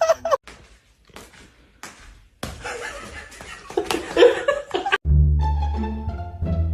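People laughing and chuckling over a background of noise. About five seconds in, a sudden cut to playful plucked-string music with deep bass notes.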